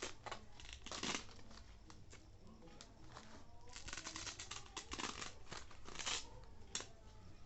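Packaging being handled and torn open: crinkling and rustling with a few sharper rips, loudest about a second in and again around four to six seconds in.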